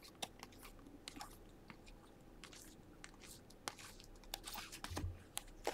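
Faint handling noise of baseball trading cards being flipped through by hand: scattered soft clicks and slides of card stock as each card is moved from front to back of the stack. The clicks grow more frequent near the end.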